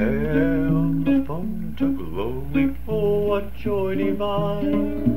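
A man singing to his own strummed acoustic guitar, a gospel song recorded at home on tape, with a steady low hum underneath.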